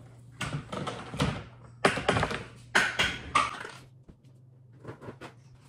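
Kitchen clatter: a quick run of knocks and taps, loudest about two and three seconds in, over a steady low hum.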